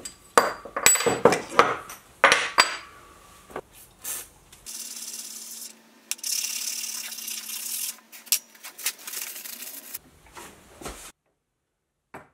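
Steel hand plane being taken apart and its blade sharpened: a run of short rubbing strokes with light metallic clinks, then several seconds of quieter, steady rasping.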